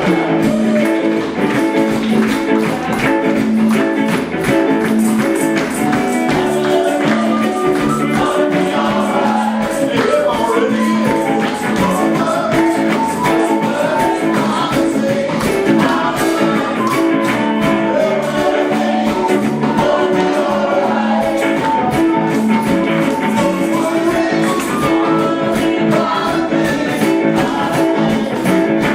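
Music: a song with singing voices over a steady tambourine beat and plucked guitar.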